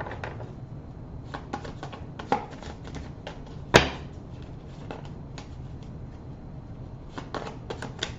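Tarot cards being handled and drawn: scattered light clicks and flicks, with one sharper snap a little under four seconds in.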